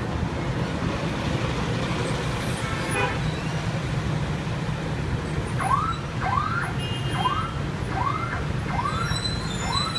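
A vehicle engine running steadily with a low rumble. About halfway in, a short rising chirp starts repeating, about twice a second.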